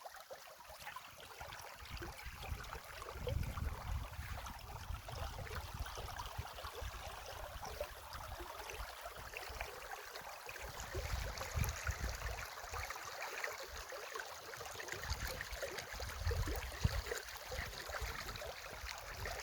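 Stream water running steadily, with a few stretches of low rumble.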